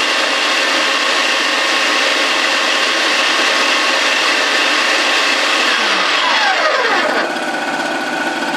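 Electric mince grinder motor running under load on a Medusa T951 two-stroke portable generator, with the generator engine running underneath. About six seconds in, the grinder's whine falls away in pitch as it winds down, leaving the two-stroke generator engine running on its own.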